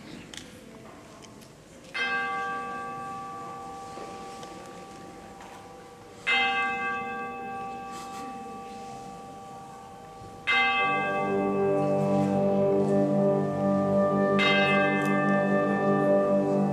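Tubular bells (orchestral chimes) struck twice, a few seconds apart, each note ringing on and slowly fading. About ten seconds in, the wind band comes in with held chords, and another chime stroke rings out over them.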